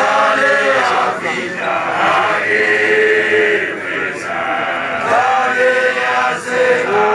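A large group of young men singing together in a chant-like choral song, holding long notes.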